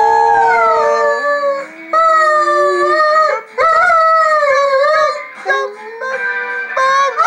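A dog howling in a string of long, drawn-out, wavering notes, each sliding in pitch and breaking off after a second or two before the next begins.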